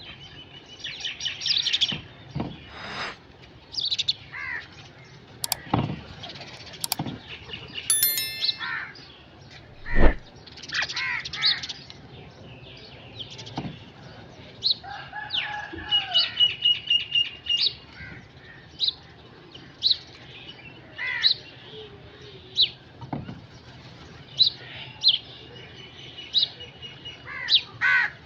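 Crows cawing among busy chirping of smaller birds: many short calls, with a quick run of repeated notes about halfway through. A few sharp clicks are mixed in.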